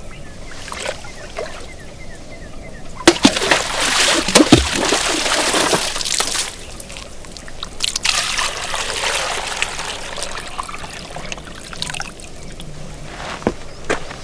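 Water being poured and sloshed in two spells of a few seconds each, with a few knocks of a vessel.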